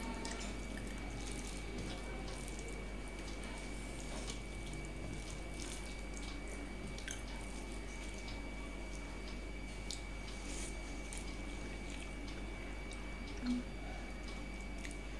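Fingers mixing rice and curry on a steel plate, with eating: faint scattered wet clicks and squishes, over a steady electrical hum and a thin high whine.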